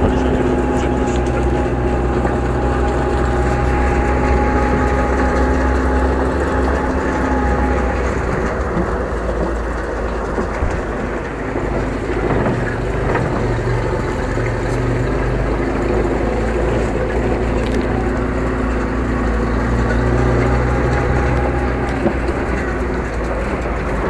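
Russian off-road truck driving under way, heard from its open cargo bed: a steady engine drone over a low rumble. The engine note weakens and wavers around the middle, then steadies again.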